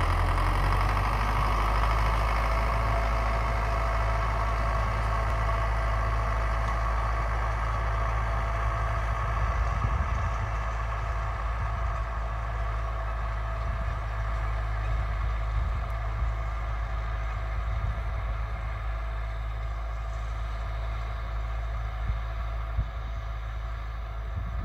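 Farm tractor's engine running steadily under load as it pulls a corn seed planter across the field, with a steady whine over the engine note. The sound grows gradually fainter as the tractor moves away.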